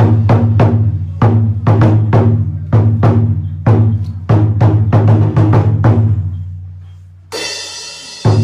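Japanese taiko drums beaten in fast, even strokes, several a second, over a deep ringing drum tone. About six seconds in the strokes stop and the ring dies away, then the beating starts again near the end.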